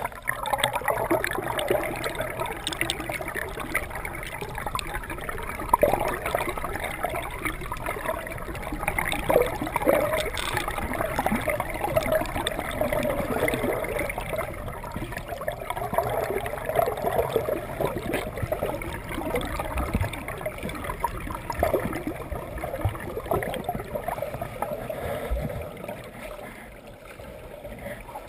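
Pool water heard underwater: a steady, uneven churning and gurgling of swimmers' strokes and bubbles, muffled by the submerged camera, easing off a little near the end.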